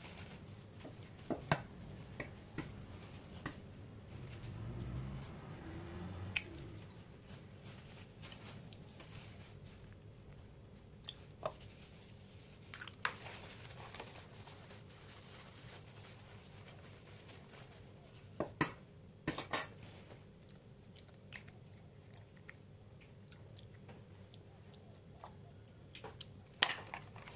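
Eggs being cracked and separated by hand: scattered sharp taps and cracks of eggshell against ceramic bowls, a few at a time with quiet pauses between, and a brief low rumble of handling about five seconds in.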